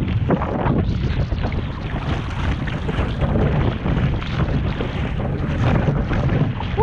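Kayak paddle strokes splashing in choppy lake water, under a steady rumble of wind buffeting the microphone.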